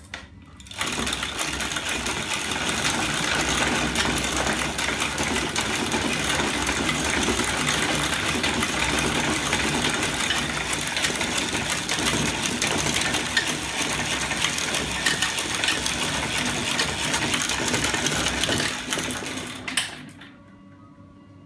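Homemade magnet-and-lever bicycle drive running: aluminium rocker arms with stacks of neodymium ring magnets work over the spinning rear wheel with a fast, steady mechanical clatter. It starts about a second in and stops shortly before the end.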